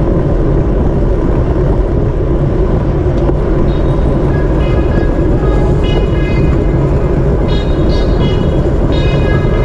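Steady wind rush and road noise from riding a road bike at racing speed. Music with sustained high notes comes in about four seconds in and grows over it.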